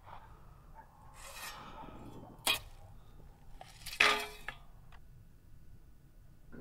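A sharp click, then about a second and a half later a hard object dropping onto stony ground with a metallic clink, followed by a small tap.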